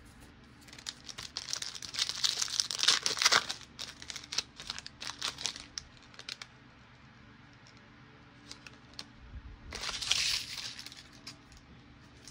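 A foil trading-card pack wrapper being torn open and crinkled: a run of crackling from about a second in to about six seconds, then another short burst near ten seconds.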